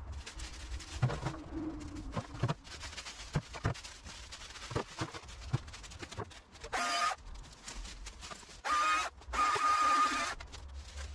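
Leafy branches rustling and snapping as cuttings are handled and pushed into a metal bin, then a small battery chainsaw running in three short bursts of steady whine near the end.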